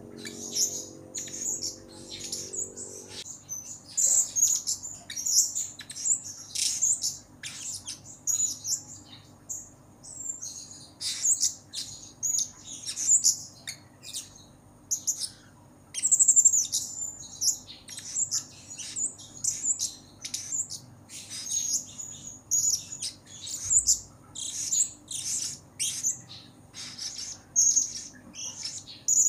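Male blue-crowned hanging parrot (serindit) calling continuously: a quick run of short, thin, high-pitched chirps, several a second, broken by brief pauses.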